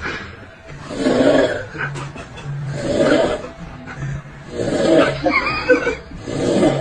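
A sleeping person snoring loudly, with a rasping snore about every two seconds, four in all.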